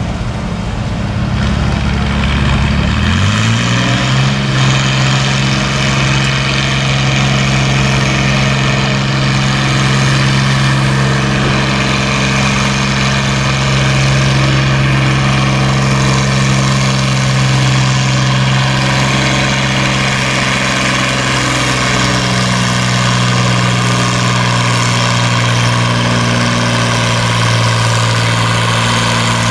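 Oliver farm tractor's engine running steadily. It speeds up about three seconds in, then holds an even fast idle.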